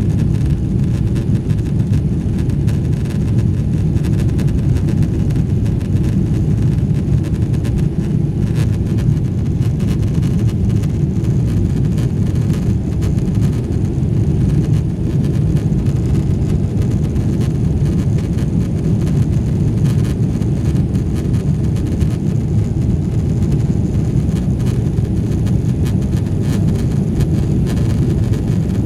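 Steady, loud low roar inside the cabin of a Boeing 777-300ER at high thrust on takeoff: its GE90-115B engines and rushing air are heard through the fuselage as an even rumble with a fainter hiss above.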